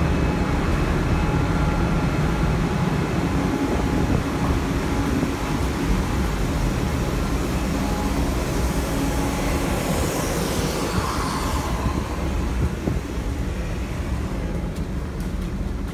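Steady low drone of a ship's machinery, with a faint hum running through it and a brief hiss about ten seconds in. Near the end, wind crackles on the microphone.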